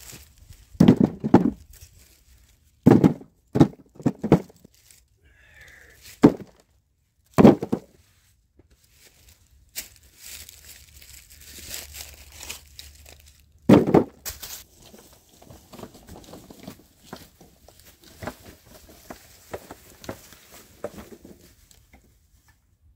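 Firewood being handled: irregular heavy wooden thunks, about eight in all, some in quick pairs, with rustling and crunching between them.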